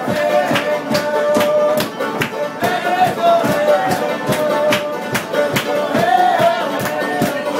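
Banjo being played with a quick, steady rhythm, a melody line running over the strokes.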